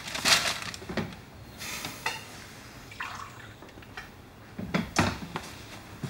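Kitchen crockery clinking and knocking a few times, with a short pour of coffee into a mug.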